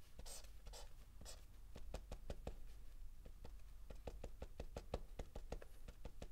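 Pen drawing on paper pinned to a wall board: a run of short, quick strokes and dabs, several a second.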